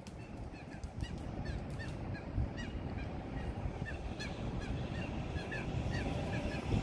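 Birds calling: short calls repeated two or three times a second, each dipping slightly in pitch. Under them a low rumble slowly grows louder as a train approaches.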